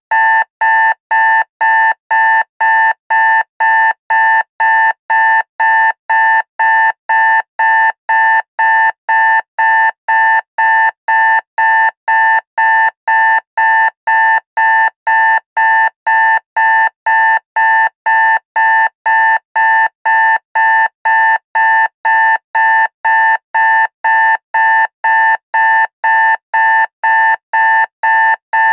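Electronic beeping: the same high, pure-sounding beep repeating evenly, about two beeps a second, like an alarm beeper.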